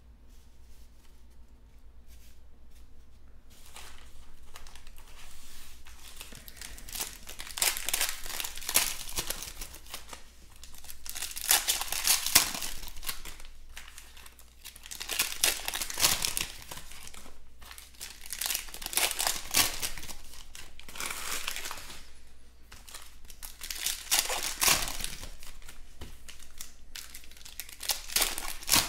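Shiny foil wrappers of trading-card packs being torn open and crumpled by hand, in repeated crackling bouts a second or two long. The first few seconds are quiet.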